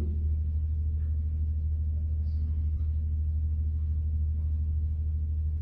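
A steady low hum, with a few faint short scrapes of a marker writing on a whiteboard.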